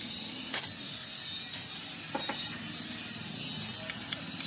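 Sharp metal clinks of hand tools, tongs and a ladle, against a battery-plate mold and a lead-melting pot. The clinks come scattered and irregular over a steady background hiss, with a few lighter ticks near the end.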